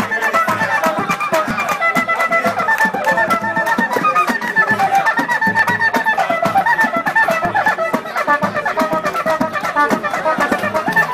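A group of voices singing Brazilian pagode over a fast, steady percussive beat, with many sharp strokes each second.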